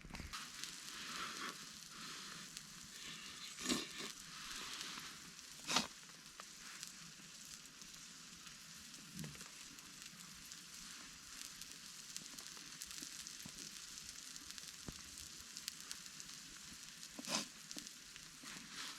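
Food sizzling in a pot over a wood campfire: a steady sizzle with three sharp pops, about 4, 6 and 17 seconds in.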